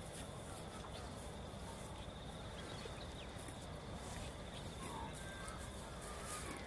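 Quiet open-pasture ambience: a steady low rumble with faint, scattered bird calls and chirps.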